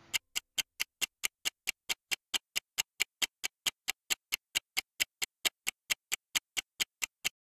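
Ticking-clock timer sound effect: fast, even ticks at about five a second that stop abruptly near the end.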